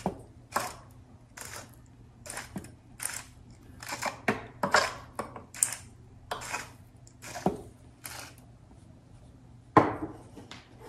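Hand-twisted salt grinder grinding salt in a dozen or so short crunches, about two a second. Near the end comes one sharp knock as the grinder is set down on the counter.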